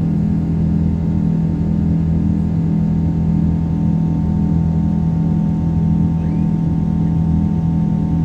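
Boeing 777-200's Pratt & Whitney turbofan engines at takeoff thrust, heard from inside the cabin: a loud, steady drone with deep, unchanging hum tones under a hiss of rushing air.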